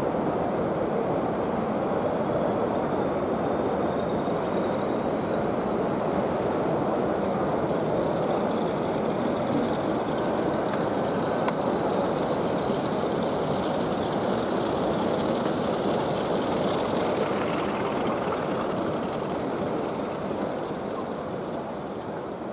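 N gauge model train running on the layout's track: a steady rumble of wheels on rails with a thin high whine that rises slightly in pitch. The sound fades near the end as the train passes.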